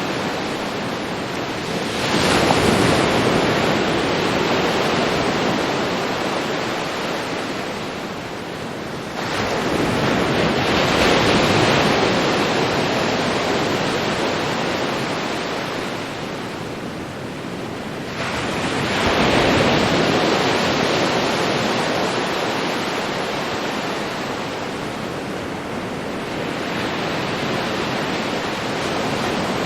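Ocean surf breaking on a beach: four waves come in, roughly every eight seconds, each arriving with a sudden rush and then washing back out slowly.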